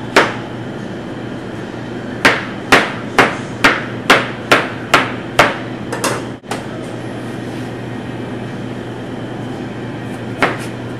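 Chef's knife chopping zucchini on a plastic cutting board: a run of about ten sharp chops, roughly two a second, then one more chop near the end. A steady low hum runs underneath.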